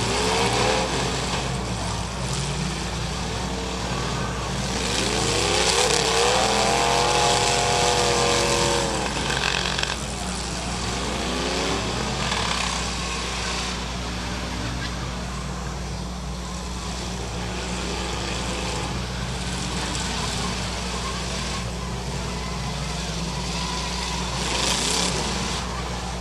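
Several demolition derby cars' engines revving and running at once, pitch rising and falling as drivers floor it and back off, over a steady low rumble.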